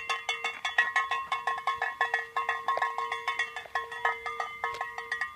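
A hand-held bell shaken rapidly, its clapper striking several times a second in an uneven rhythm with a ringing metallic tone and brief pauses.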